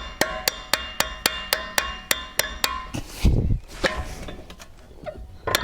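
Hammer striking metal in a quick steady run of about four blows a second, each ringing, to knock the rear wheel bearing hub loose. A heavier dull thump follows about three seconds in, then a few scattered knocks.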